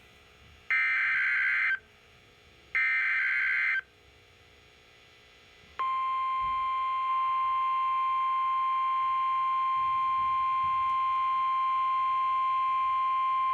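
Two bursts of EAS SAME header data, each a harsh digital warble about a second long and a second apart. About six seconds in, the steady single-pitch NOAA Weather Radio 1050 Hz alert tone starts and holds. The header and tone announce a warning broadcast, here a snow squall warning.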